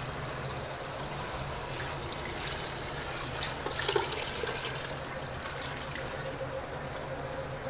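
Soaked split lentils poured from a steel plate into a steel pot of wet chicken masala, the grains sliding and pattering in. A sharper click comes about four seconds in, over a steady low hum.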